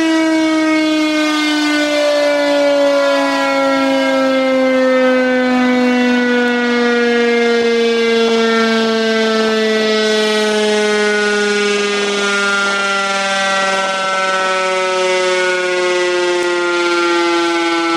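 Motor-driven outdoor warning siren sounding one continuous tone whose pitch slowly falls, rich in overtones. Both of its shutters are jammed, giving a muffled sound.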